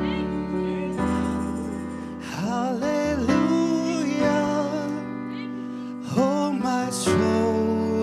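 Gospel worship music: held instrumental chords with a singer's voice sliding between notes in two phrases.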